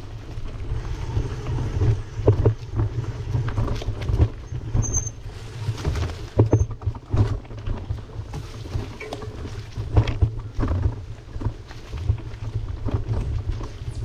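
Wind rumbling on the microphone of a camera riding along on a bicycle, with irregular knocks and clicks scattered throughout.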